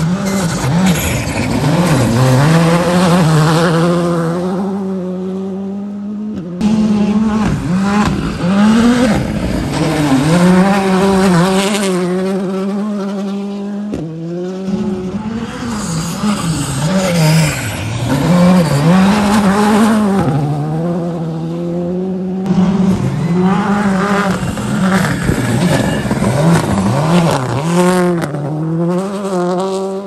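Rally cars at speed on a gravel stage, engines revving hard and dropping back through gear changes as each car brakes, slides and accelerates past. The sound breaks off abruptly three times as one car gives way to the next.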